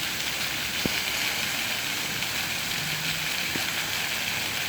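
Water fountain's jets splashing down into the basin: a steady hiss of falling water and spray, with a single faint click about a second in.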